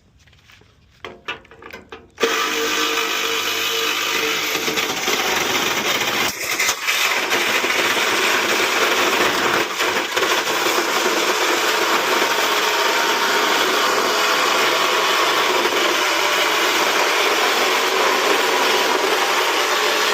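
Ryobi cordless power tool cutting into the metal of a tankless water heater. It starts about two seconds in and then runs at a steady, loud, even pitch.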